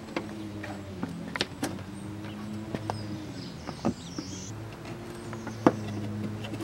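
Plastic push-pin trim clips on a car's bumper top being prised out with a flathead screwdriver: several sharp plastic clicks, the loudest near the end, over a steady low hum.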